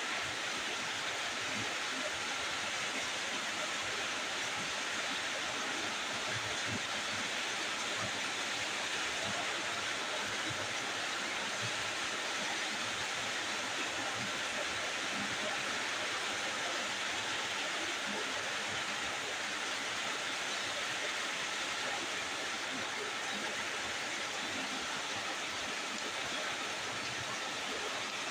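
Chicken cooking in a pan, giving a steady sizzling hiss that holds unchanged throughout.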